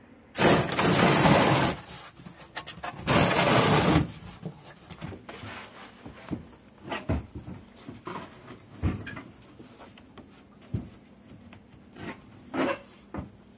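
Two loud bursts of harsh noise, each about a second long, near the start. These are followed by scattered knocks, clunks and clicks of tools and parts being handled by someone working under a car at the fuel tank.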